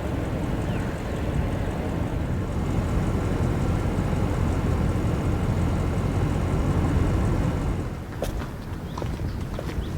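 Audi RS6 Avant's twin-turbo V8 and road noise while driving, a steady rumble that builds a little and then eases off about eight seconds in. A few light clicks follow near the end.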